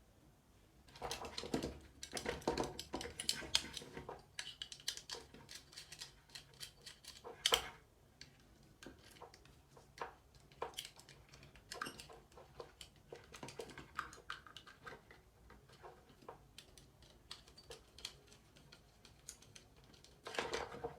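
Irregular clicking and rattling of small hard objects being handled. The clicks are busiest in the first few seconds, with a sharp one at about seven and a half seconds and another burst near the end.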